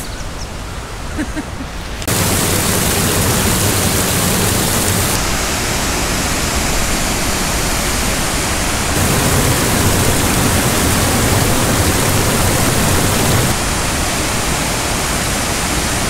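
Aysgarth Falls on the River Ure: water pouring over wide limestone steps, a loud, steady rush that sets in suddenly about two seconds in, after a quieter woodland stretch with a few faint calls.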